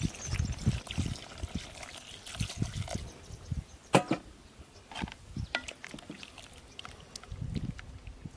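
Water pouring from a kettle into a cast-iron pot of stew, with a single sharp knock about four seconds in. Near the end, a wooden spoon stirs through the liquid.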